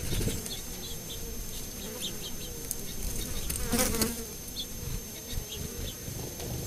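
A flying insect buzzing close past the microphone, swelling and fading about three and a half to four seconds in. Faint short high chirps of small birds come and go in the background.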